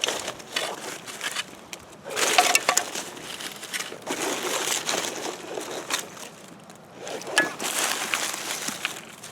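Loose debris being rummaged through: crunching and scraping in several bouts, with a few sharp clinks.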